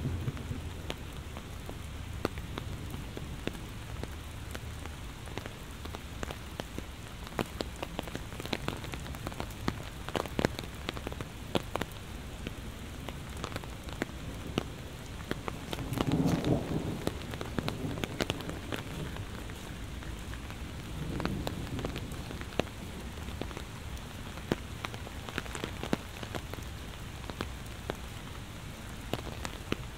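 Heavy rain falling steadily, with many sharp drops striking close by. A low rumble of thunder dies away in the first moments, and a short, louder low swell comes a little past halfway.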